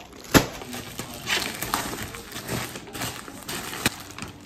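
Plastic packaging crinkling and rustling as it is handled, in short flurries, with a sharp knock near the start as a phone is set down on a stone countertop and another knock near the end.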